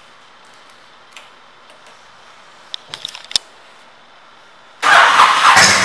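A few light clicks, then near the end the 2004 Honda VTX 1300R's V-twin, fitted with Cobra pipes, is started: it cranks, fires and catches into a loud, steady idle.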